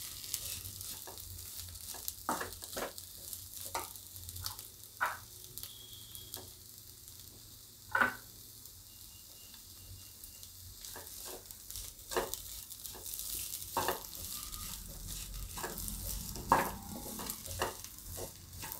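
A plastic spatula stirring and scraping a dry, crumbly gram-flour and onion mix around a non-stick kadai, in irregular soft scrapes and taps with one louder knock about eight seconds in, over a faint sizzle from the pan.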